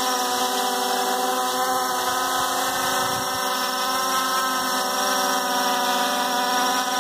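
Hubsan X4 H501S quadcopter hovering close overhead, its four brushless motors and propellers giving a steady whine held at a constant pitch.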